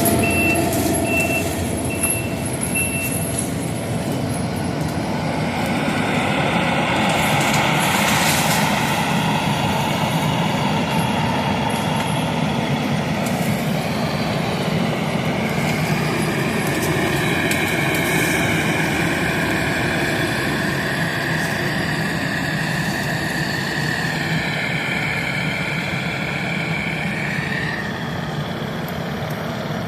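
Takeuchi track loader with a Fecon mulching head, its diesel engine and hydraulics running hard under load. The engine pitch rises and falls through the second half. A backup alarm beeps a few times about a second in.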